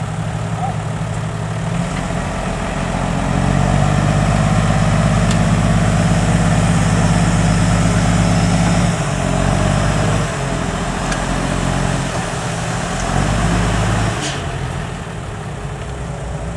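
Dump truck's diesel engine running. It rises in level and pitch about three seconds in, holds, then eases back about nine seconds in, with a short sharp noise about fourteen seconds in.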